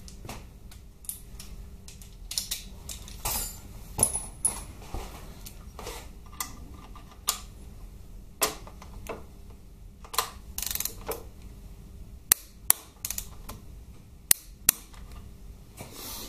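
Wrench work on the stabiliser link bolts: scattered metal clicks and short runs of ratchet clicking, then four sharp clicks in two pairs near the end, the clicks of a click-type torque wrench reaching its 30 newton-metre setting.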